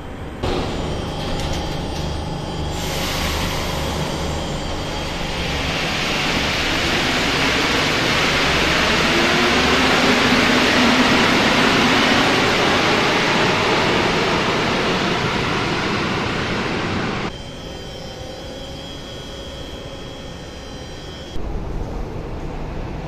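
Rubber-tyred metro train running at a platform: a loud rushing noise that builds over several seconds with a faint rising whine, then cuts off suddenly.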